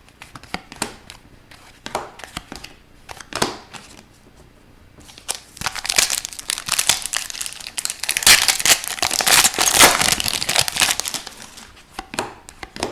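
Trading cards handled with scattered light clicks, then from about five seconds in a hockey card pack's wrapper crinkling and tearing open for several seconds before tapering off.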